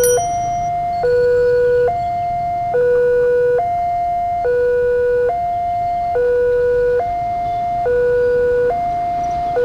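Railway level-crossing warning alarm sounding a steady two-tone signal, a lower and a higher tone alternating just under once a second, warning that a train is approaching as the crossing closes.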